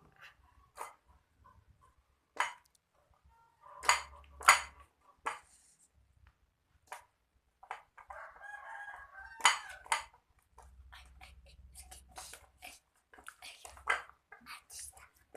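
Homemade clear-glue slime being kneaded and pressed by hand, giving irregular wet clicks and pops.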